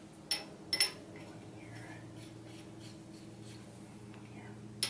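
Steel cylinder-head studs clinking against each other and the iron engine block as they are handled and set in: a few sharp, ringing metallic clinks, a pair near the start and one near the end.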